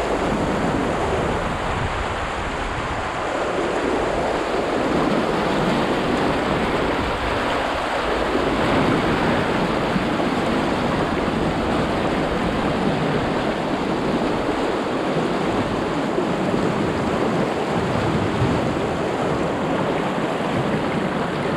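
Fast river water rushing and churning through a whitewater riffle alongside a canoe, a steady loud wash of water noise.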